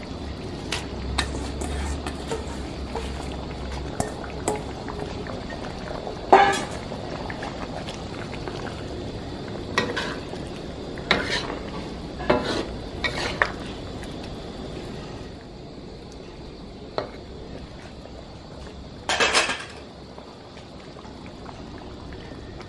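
Metal spatula scraping and clinking against a large iron wok as simmering curry is stirred, in irregular strokes over a steady bubbling hiss.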